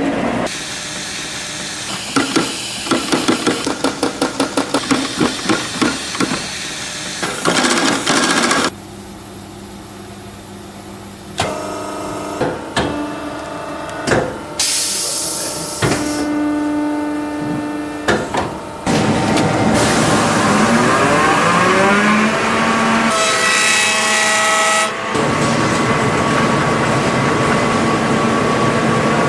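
Shoe repair work with tools and a workshop machine: a run of quick, even strokes like rubbing or filing, then a machine motor that spins up with a rising whine and runs steadily.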